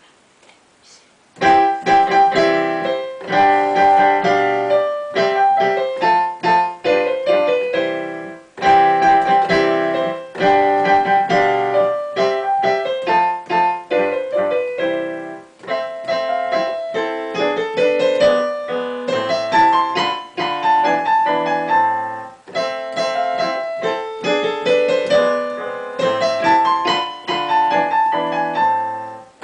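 Digital piano played four hands: a lively Allegro duet, a dense run of quick notes beginning about a second and a half in.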